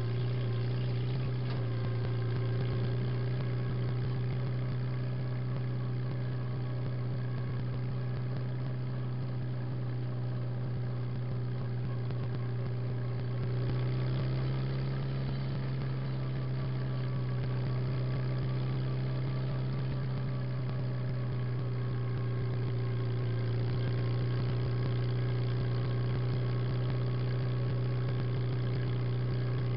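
Farmall Super H tractor's four-cylinder engine running steadily, heard close to its exhaust stack.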